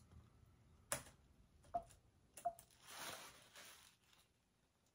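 Three faint, sharp clicks from pressing a MacBook's keys or trackpad during setup, each about a second apart, then a soft rustle near three seconds in.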